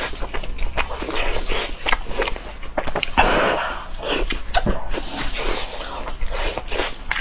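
Close-miked eating of fatty roast meat: tearing it apart by hand, biting and chewing, heard as a dense string of short clicks with a noisier tearing stretch about three seconds in.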